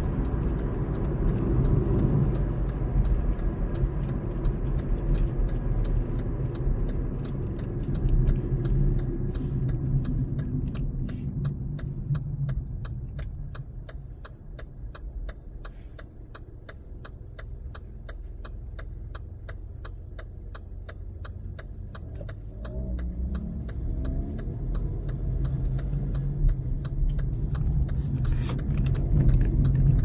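Car cabin: engine and road rumble at speed that dies down as the car slows and stands at a red traffic light, then builds again as it pulls away. Through the stop, a turn-signal indicator ticks steadily about twice a second.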